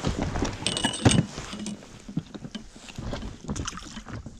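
Handling noise from unhooking a small perch over an inflatable boat: scattered clicks, knocks and rustles, with a louder knock about a second in, over wind and water noise.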